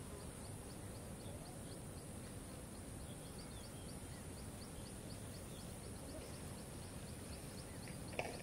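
Faint outdoor background noise: a steady low rumble with a quiet high chirp repeating about three times a second from around three seconds in.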